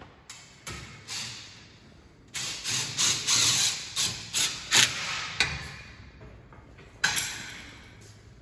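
Cordless drill run overhead in a string of short, stop-start bursts for about three seconds, then a single sharp knock that rings away.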